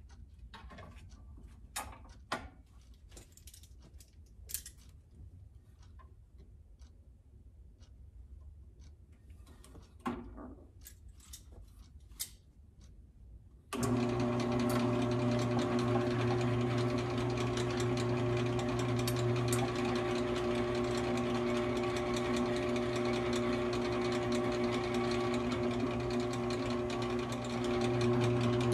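Small clicks and knocks of handling at the drill press, then about 14 seconds in the benchtop drill press motor switches on and runs with a steady hum while a step drill cuts through the aluminium engine plate, a little louder near the end.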